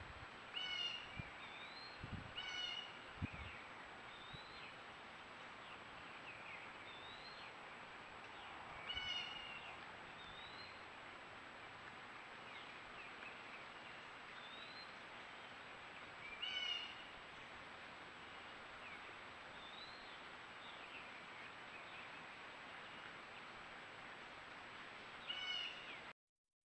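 Faint outdoor birdsong over a steady background hiss. One bird repeats a short rising whistle every few seconds, and another now and then gives a quick burst of falling notes. A few soft low thumps come in the first few seconds, and the sound cuts to silence just before the end.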